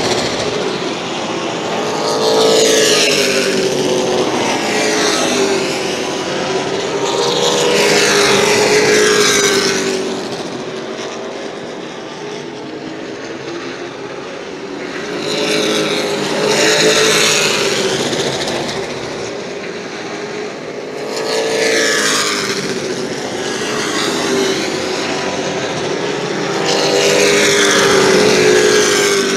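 Pro Late Model stock cars racing on a short oval, their V8 engines swelling loud and fading several times as the pack passes, the engine notes bending up and down in pitch.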